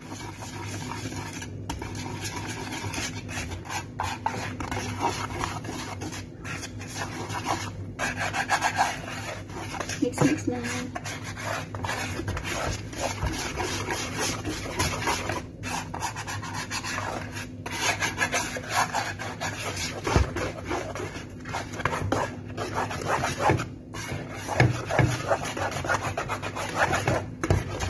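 Wire balloon whisk mixing flour, milk powder and egg into pancake batter in a large bowl: continuous rapid scraping and rubbing of the wires against the bowl and through the thick mix, with a few brief pauses.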